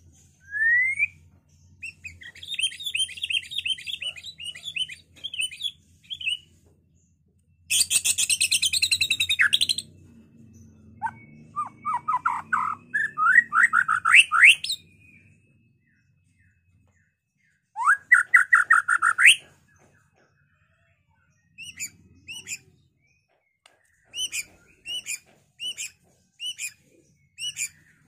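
White-rumped shama (murai batu) singing a varied full song: rising whistled notes and rapid trills, a loud harsh burst about eight seconds in, fast upward-sweeping runs, then short clipped notes spaced out toward the end.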